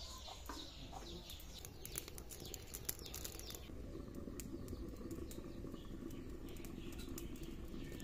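Wood fire crackling in a clay cooking stove, scattered sharp snaps throughout, with birds chirping in the first second or so.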